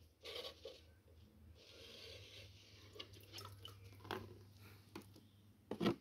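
Faint handling noises: soft rubbing with a short hiss, then a few small clicks, as hands move around plastic bottles and a tub.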